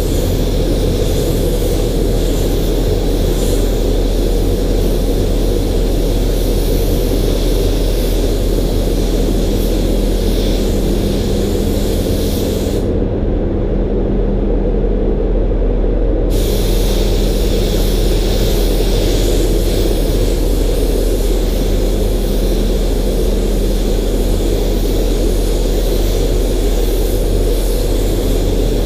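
DeVilbiss gravity-feed spray gun hissing as it sprays primer, with the air hiss stopping for about three seconds around the middle before it starts again. A steady low hum runs underneath.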